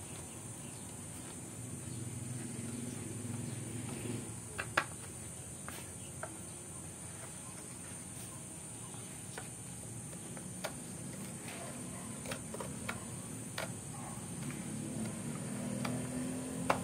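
Scattered light clicks and taps as a hand-held orbital sander and a metal rod are handled and turned over on a workbench, the sander's motor not running. A steady high-pitched hiss runs underneath.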